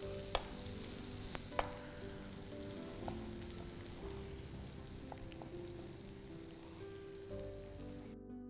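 Chopped tomatoes sauteing in hot oil in a pan, a steady sizzle, with two sharp knocks of a chef's knife on a wooden cutting board in the first two seconds. Soft background music runs underneath; the sizzle cuts off just before the end, leaving the music.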